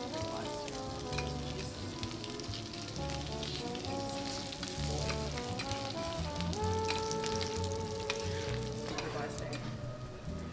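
Diced beef fat sizzling on a steel teppanyaki griddle, with scattered clicks of the chef's knife and spatula striking the hot plate, under background music with sustained notes and a repeating bass line.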